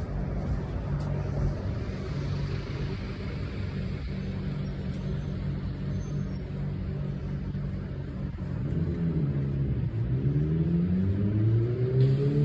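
An engine running steadily with a low hum. From about two thirds of the way in its pitch dips, then rises and falls as it revs, getting louder toward the end.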